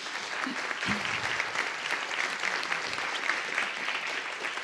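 Audience applauding, breaking out suddenly and continuing steadily, with a brief low thump about a second in.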